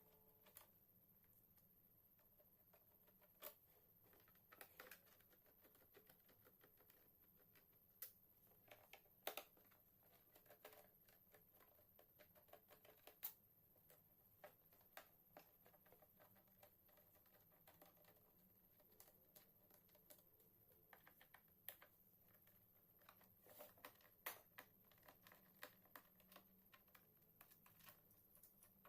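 Faint, irregular clicks and taps of small tools and hands working on a laptop's plastic case, a few sharp ticks a second at the busiest moments.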